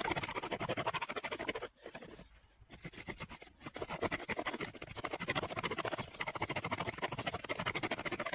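Bow drill in use: a wooden spindle grinding in its socket in a wooden hearth board as the bow is sawn quickly back and forth, a rhythmic scratchy rasping. The friction is grinding out hot wood dust to form an ember. The rasping pauses for about a second near two seconds in, then resumes.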